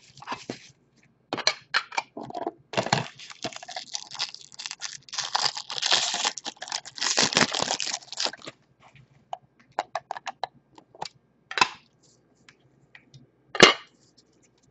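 Hands handling trading cards and a clear plastic card holder. There are about eight seconds of dense crinkling and rustling, then scattered light clicks and one sharp snap near the end.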